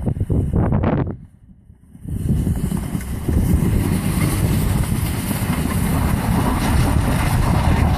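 Ford F-150 pickup truck driving hard in circles on snow, its engine and spinning tyres making a loud rumbling noise mixed with wind buffeting on the microphone. The sound drops away sharply about a second in, then comes back and runs on steadily.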